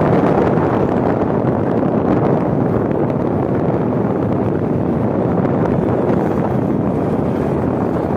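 Steady rush of wind over the microphone while riding a Suzuki Smash 115 motorcycle at speed, with the bike's running and road noise mixed in.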